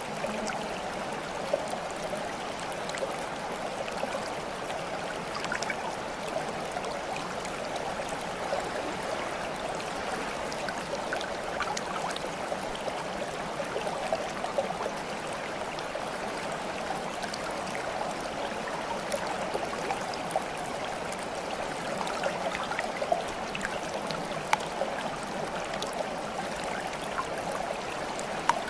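Running water from a small stream, flowing and gurgling steadily, with scattered small drips and splashes.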